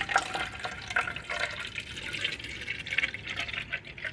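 Water poured from a plastic mineral-water bottle into the clear plastic water tank of a Nescafe Dolce Gusto coffee machine: a continuous pour with irregular splashing as the tank fills.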